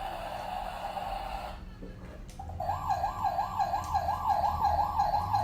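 Emergency siren wailing in a fast up-and-down warble, about three sweeps a second, starting about two and a half seconds in and getting louder. Before it, a steady high whine cuts off about a second and a half in.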